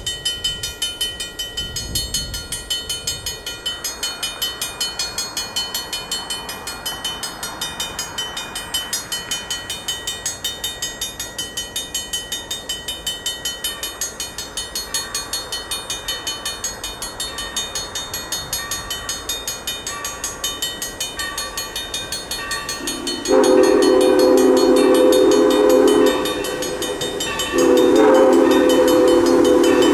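Grade-crossing warning bell ringing rapidly and steadily. About 23 s in, the chime steam whistle of Tangshan-built steam locomotive #3025 blows a long blast for the crossing, breaks off for about a second and a half, then blows again.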